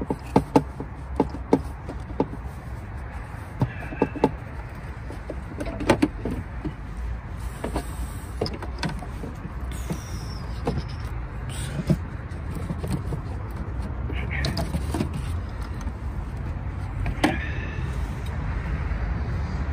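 Clicks and knocks of hands working plastic clips and a rubber intake hose loose from a car's throttle body, most of them in the first few seconds and then a few scattered ones, over a steady low rumble.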